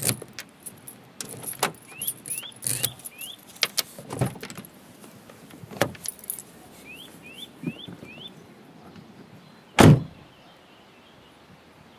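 Car keys jangling and clicking in the hand, then a car door shutting with one loud thump near ten seconds in. Small birds chirp in short rising calls in the background.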